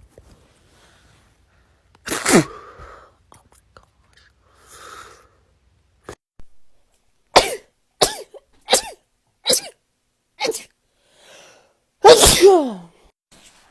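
A person sneezing over and over: one sneeze about two seconds in, then a quick string of five short sneezes and a longer, louder sneeze near the end. It is a nonstop sneezing fit, which the sneezer puts down to allergies or something stuck in the right nostril.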